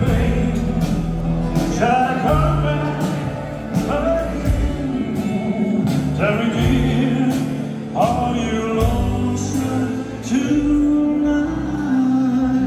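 A live band plays a slow ballad with singing over it, held sung notes above a steady light beat.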